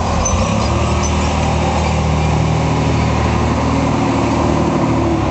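Piston engine of a low-flying crop-duster plane running steadily and loudly as it makes a low spraying pass overhead.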